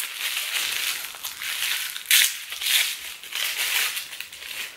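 Wrapping paper crinkling and rustling in irregular bursts as a small gift package is unwrapped by hand.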